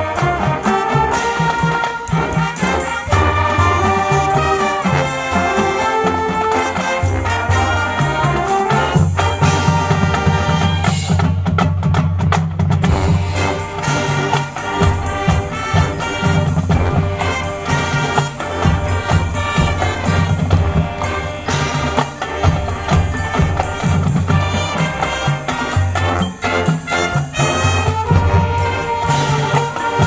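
High school marching band playing its field show: brass ensemble with trumpets and trombones playing held notes over drums and percussion.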